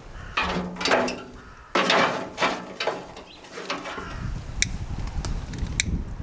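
Dry twigs rustling and crackling as bundles are dropped and pushed into a steel barrel grill, followed by a few sharp snaps as they are arranged by hand.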